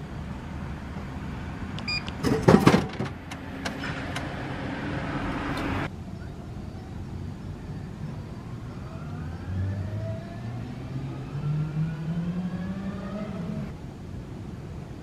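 A drink vending machine dispensing a can: a burst of loud clunks and rattles about two seconds in as the can drops into the chute, then a steady whir that stops abruptly a few seconds later. Later, a vehicle engine rises steadily in pitch for about four seconds as it accelerates.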